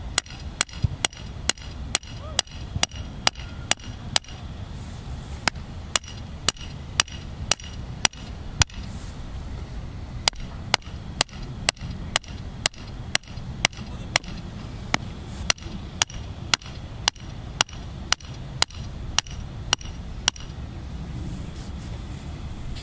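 Steel mallet striking the top of a steel net pole, driving it into the ground: sharp metallic clanks with a brief ring, about two a second, in runs broken by short pauses, stopping near the end.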